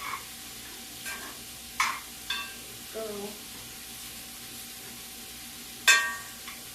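Cabbage, onions and carrots sizzling in a hot stir-fry pan while a spoon stirs and turns them, scraping and knocking against the pan several times. The loudest is a ringing clank near the end.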